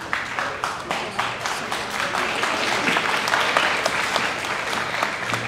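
Audience applauding, many hands clapping at once, swelling over the first couple of seconds and then holding steady.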